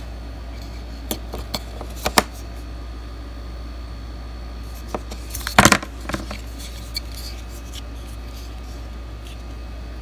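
Small plastic clicks and knocks from handling wireless earbuds and their charging case, with a louder cluster of clicks about five and a half seconds in.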